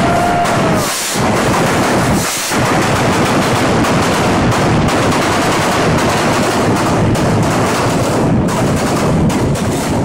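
Stage pyrotechnics firing: a dense, rapid barrage of bangs and crackles from spark fountains and flame bursts, like machine-gun fire, with two brief lulls in the first few seconds.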